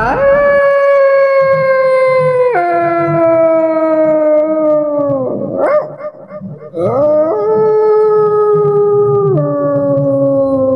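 Canine howling: two long howls, each rising at the start, holding a high note, then dropping suddenly to a lower one and sliding down, with a short break about halfway.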